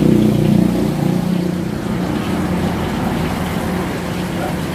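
Motor vehicle engine rumble from road traffic, louder in the first second and then a steady low drone.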